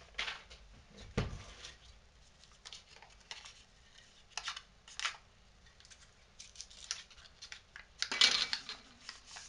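Hands handling a transformer core half and silicone-coated paper: scattered small clicks and rustles, a dull knock about a second in, and a louder rustling burst near the end.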